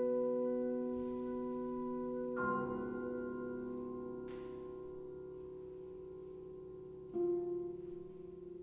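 Quiet contemporary chamber music for flute, clarinet, harp, piano and vibraphone: held notes slowly fading, with soft new chords struck about two and a half seconds in and again about seven seconds in, each ringing and dying away.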